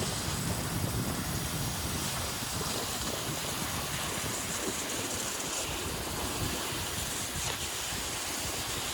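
Wind buffeting the microphone: a steady rushing noise with a fluttering low rumble.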